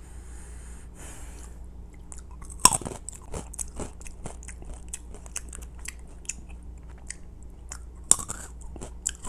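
Crispy-coated wasabi peanuts being bitten and chewed with loud crunching. One sharp crunch comes about two and a half seconds in, then a run of smaller crackling crunches, and another sharp crunch near the end.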